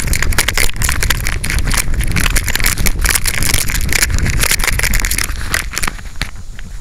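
Handling noise from a micro camera strapped to a search dog's harness while the dog moves: constant rubbing, scraping and knocking of the harness straps and fur against the microphone over a low rumble. It eases off about five and a half seconds in.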